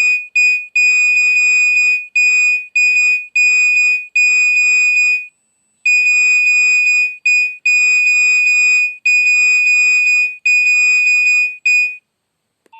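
Nokia 2600 mobile phone playing one of its preloaded ringtones or alert tones through its small speaker. It is a rhythmic run of high beeps, long and short, all on the same pitch, with a short break about five seconds in, and it stops just before the end.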